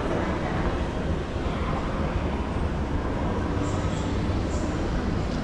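Steady low rumble and running noise of an airport people-mover train in motion, heard from inside the car.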